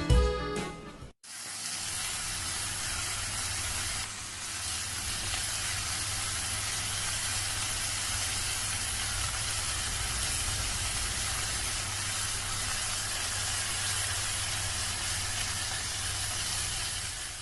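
A steady, even hiss with a low hum underneath, after music fades out about a second in.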